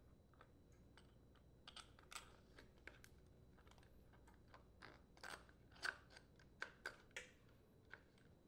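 Faint, scattered clicks and light taps as a Honda small-engine carburetor is slid onto its mounting bolts against the plastic air filter housing.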